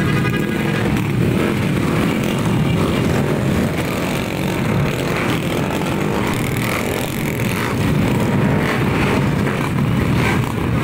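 Many motor scooters and small motorcycles running at low speed in a slow-moving pack, their engines blending into a loud, continuous drone.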